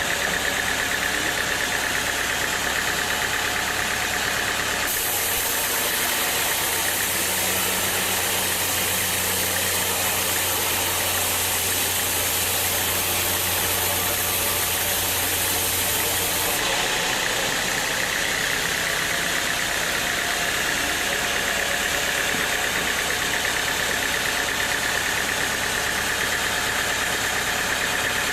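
Sawmill machinery running steadily. About five seconds in, the sound switches abruptly to a brighter hiss over a low hum, and it switches back about sixteen seconds in.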